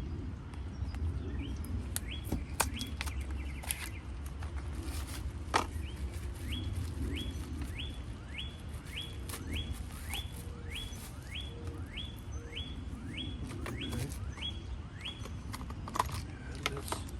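A bird calling a steady run of short rising notes, about two a second, over a low rumble, with scattered sharp clicks.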